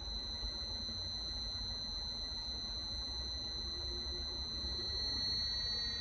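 Induction motor run by a variable frequency drive, giving a steady high-pitched electrical whine with a faint low hum under it while it turns at a low set speed (15 Hz). Near the end the whine shifts slightly upward as the drive steps the motor up to its next speed.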